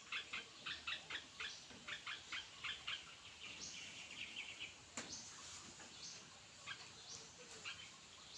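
Birds chirping: a quick run of short, repeated chirps, about three a second, for the first three seconds, then a brief trill and scattered calls. A single sharp click comes about five seconds in.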